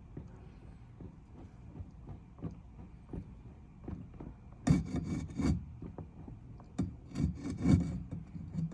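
Irregular scraping and rubbing with a series of sharp knocks, loudest in clusters just past halfway and again near the end.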